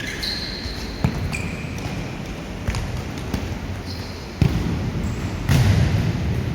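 Futsal ball being kicked and bouncing on an indoor court, several sharp knocks, with sneakers squeaking briefly on the floor in between.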